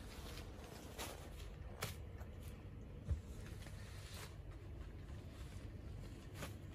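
Folded bandhani saris being handled and laid on a stack: cloth rustling and sliding in short brushes, with a soft thump a little after three seconds in as a garment is set down.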